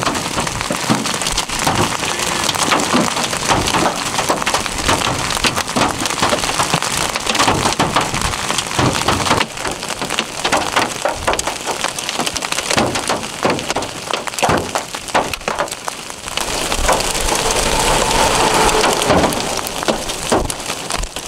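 Hail and rain pelting down, a dense, continuous patter of small hits. A steadier drone joins about seventeen seconds in as a vehicle approaches.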